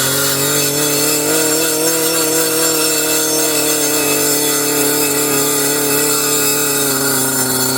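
Gas-powered circular saw running at high speed, a steady engine note with a slight waver; its pitch sags near the end as the blade takes load.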